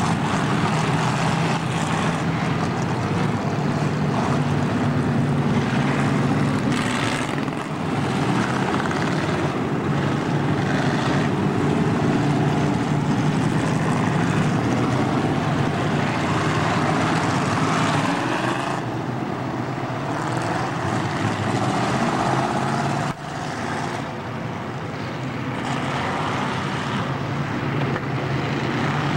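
A field of stock cars racing on a short oval, many engines running together in a loud continuous drone that swells and fades as cars pass. About three quarters of the way through, the sound breaks off suddenly and resumes a little quieter.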